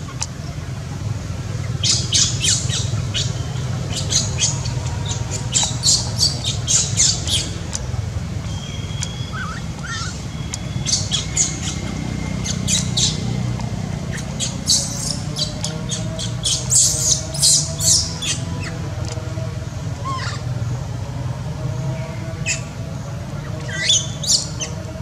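Bursts of rapid, sharp, high-pitched squawking calls, several clusters of one to two seconds each, over a steady low hum.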